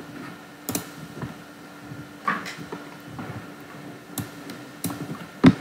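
A few sharp computer mouse clicks, about five spread out, the loudest near the end, over a steady low electrical hum.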